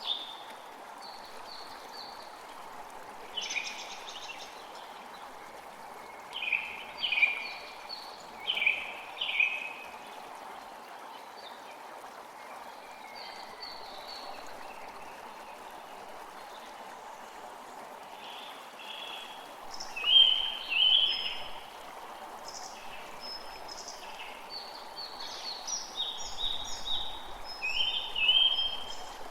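A forest creek flowing steadily, with songbirds chirping in short bursts over it, in clusters a few seconds apart.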